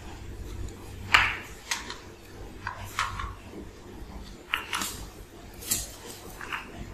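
A cat and kittens play-fighting on a tile floor: scattered short scuffles and clicks of paws and claws on the tile and a plastic mat, the sharpest about a second in. No meowing.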